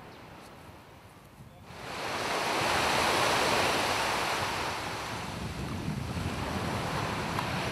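Small waves breaking and washing up a sandy beach. The surf comes in suddenly about two seconds in, after faint quiet outdoor air, and is loudest soon after.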